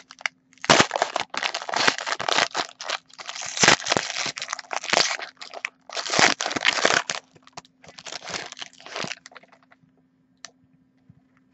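Foil wrapper of an Upper Deck Premier hockey card pack crinkling and tearing as it is opened by hand: a run of crackly rustles that stops about nine seconds in.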